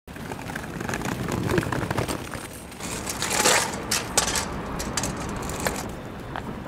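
Busy pedestrian street: footsteps and scattered sharp clicks and knocks on paving stones, with a louder swell of noise about three seconds in.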